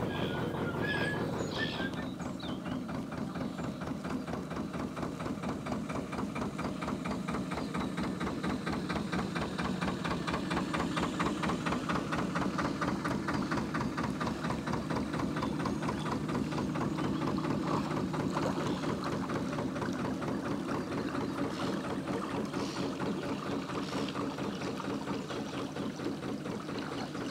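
A narrowboat's Lister diesel engine running under way, a steady rapid thumping beat as the boat passes close by.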